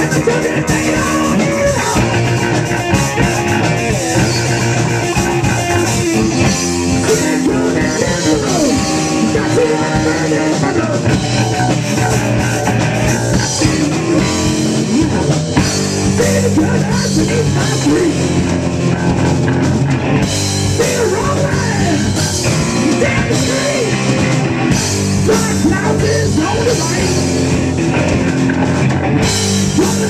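Rock band playing live: electric bass, electric guitar and drum kit together, steady and loud.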